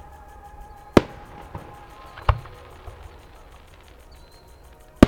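Aerial firework shells bursting with sharp bangs: one about a second in, another just over a second later, and the loudest right at the end, with a smaller pop in between.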